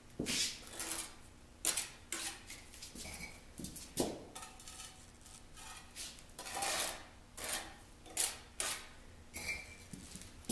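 Steel brick trowel scraping up mortar and spreading it, with irregular short scrapes and sharp clinks of the blade against brick and concrete.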